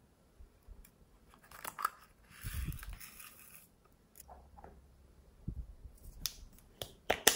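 Hands handling slime and its add-ins: a rustling hiss lasting about a second, from roughly two and a half seconds in, then fingers squeezing glossy slime with small sharp clicks and pops, the loudest near the end.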